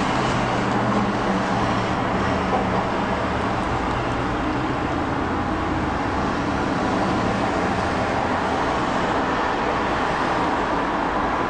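Steady road traffic noise, with a low engine hum standing out in the first few seconds.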